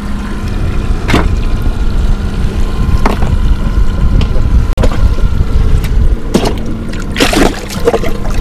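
Boat motor running steadily, a low rumble with a constant hum, broken by a few sharp knocks.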